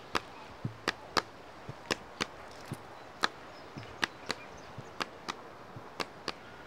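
Sharp knocks in a steady rhythm, many in pairs about a third of a second apart, roughly one or two a second.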